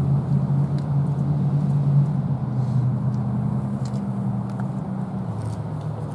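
A vehicle engine running, a steady low hum that slowly fades.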